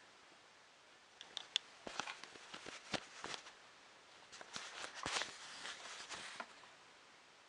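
Hands handling small plastic printer parts and cable: a scatter of light clicks, taps and rustles, starting about a second in and stopping after about six and a half seconds.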